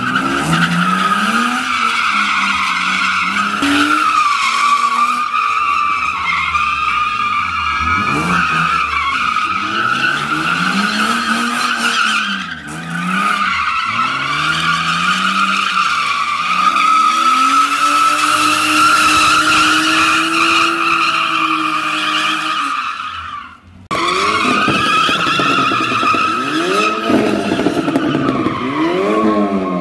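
BMW E36 drifting: a continuous tyre squeal with the engine revving up and down as the car slides round in circles. The sound drops out briefly about three-quarters of the way through, then the squeal and revving carry on.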